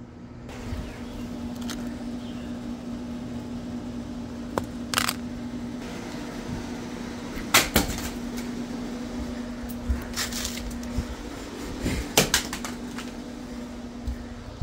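An LG Nexus smartphone being dropped repeatedly in drop tests, landing on its corner and hitting the ground with sharp knocks. There are about five separate impacts, some doubled; the loudest comes just past halfway. A steady low hum lies underneath.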